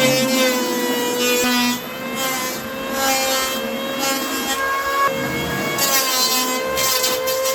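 Electric hand planer running over a rough pine slab, a steady motor whine with the rasp of the cutter on the wood, easing briefly about two seconds in.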